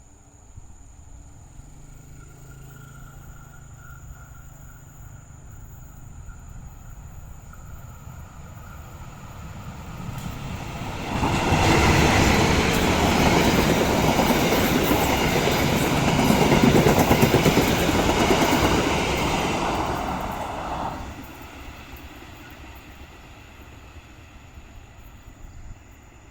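A train passing close by. Its rumble builds, then wheels on rail run loud for about ten seconds before fading away.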